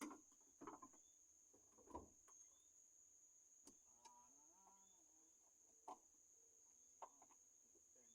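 Near silence: a few faint scattered clicks and knocks of hand work on a car, over a steady thin high hum, with a brief faint call, like a distant fowl, a little after four seconds in.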